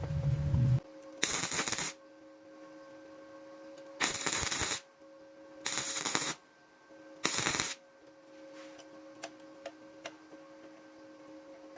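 A loud low rumble cuts off under a second in, leaving a steady motor hum. Four short rasping bursts follow, consistent with a planer knife being ground on a bench grinder.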